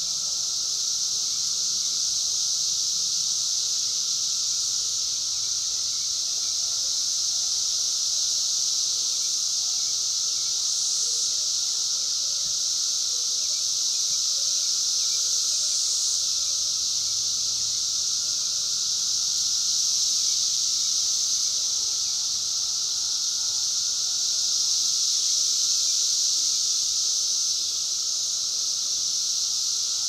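Chorus of Brood X periodical cicadas, a steady, high-pitched droning buzz that goes on without a break.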